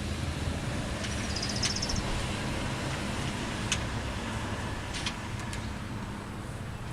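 Steady low rumble of a running vehicle engine, with a few light sharp clicks and a short run of rapid ticks from wing nuts and washers being threaded onto bolts by hand.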